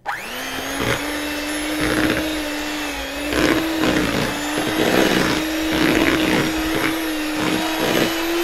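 Electric hand mixer switched on and running at a steady pitch, its beaters breaking up chunks of boiled potato in a bowl with irregular knocks and thuds throughout.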